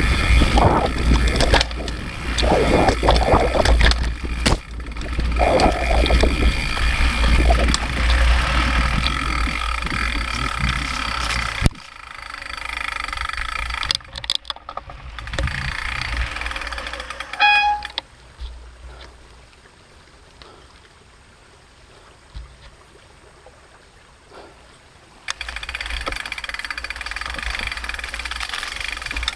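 Mountain bike ridden along a forest trail, heard from a handlebar-mounted camera: wind buffeting the microphone and the bike rattling over rough ground. The noise is loud at first, drops suddenly after about twelve seconds, falls to a quiet stretch past the middle and picks up again near the end. A brief high-pitched squeal comes just before the quiet stretch.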